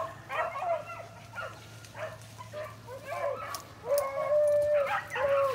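Beagles baying as they run a rabbit's track: a string of short, overlapping yelping barks, then long drawn-out bawls from about four seconds in.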